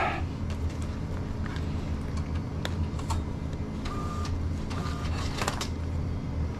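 Steady low mechanical hum, with scattered light clicks and two short high beeps, about four and five seconds in.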